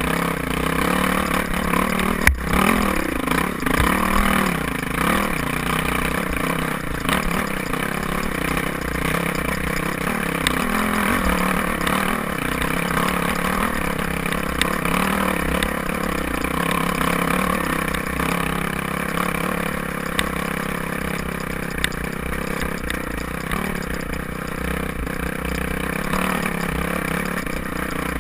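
Off-road dirt bike engine running at low to middling revs as the rider works the throttle up a rocky trail, its pitch rising and falling. A sharp knock comes a little over two seconds in.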